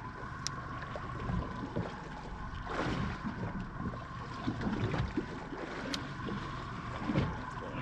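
Small fishing boat at sea: water lapping against the hull and wind on the microphone, under a faint steady hum, with a few light knocks.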